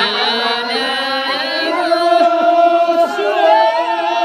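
Voices singing a slow, chant-like song with long held notes that step from pitch to pitch.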